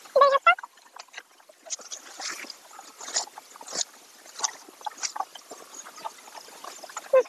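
Cows slurping and munching water and chopped bottle gourd from a trough: irregular short wet splashes and sucks. A loud, short, high-pitched call sounds just after the start and briefly again near the end.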